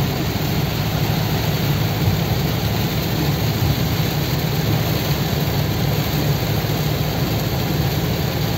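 Very heavy rain beating on a car's roof and windshield, heard from inside the cabin, over the steady hum of the engine and tyres on the wet road.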